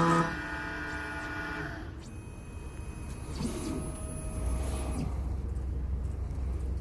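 Keyline Gymkana 994 key-cutting machine's cutter motor whining, cutting off about a third of a second in and spinning down over the next second or so as the key cut finishes. A low rumble follows.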